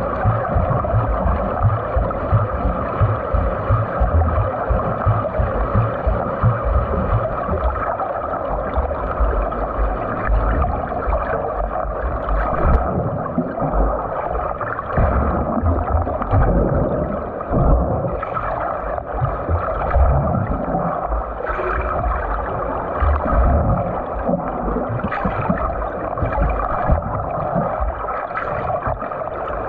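Water rushing and churning around a swimmer doing butterfly stroke drills, a steady wash of water noise with uneven low surges.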